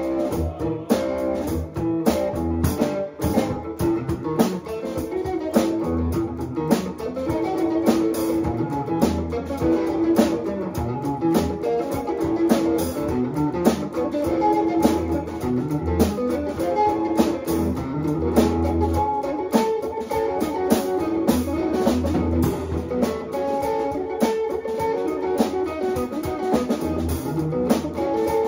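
Band rehearsal: drum kit and guitar playing a song together, with drum hits running through.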